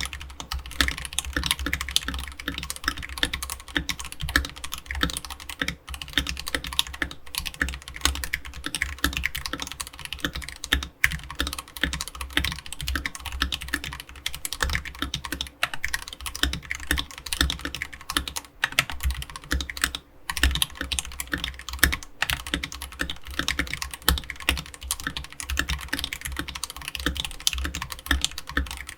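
Fast, continuous typing on an AKKO 3068B Plus mechanical keyboard with a plastic case, fitted with AKKO Jelly Purple tactile switches and ASA-profile keycaps. The keyboard sits on a bare desk without a deskmat, and the keystrokes come as a dense, unbroken run of clacks.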